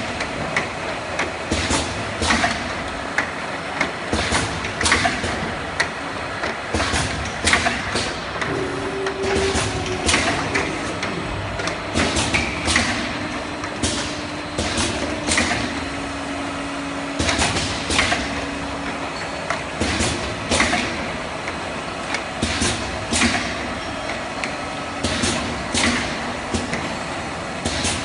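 Room-perfume filling and capping line running: a steady machine noise with frequent, irregular sharp clacks as plastic bottles knock together on the turntable and conveyor. A steady tone holds through the middle of the stretch.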